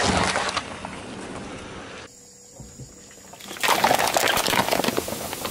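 A car tyre rolling over a watermelon, squashing the rind and flesh with wet crunching. About three and a half seconds in, a tyre crushes plastic cups full of soda: loud crackling plastic and splashing liquid.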